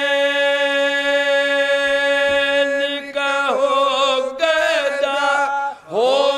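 Unaccompanied group of men singing a lament for Husain together, the elderly lead singer carried by the others' voices. A single note is held for about three seconds, then the melody moves up and down through a phrase, breaks off briefly near the end, and a new phrase swells in.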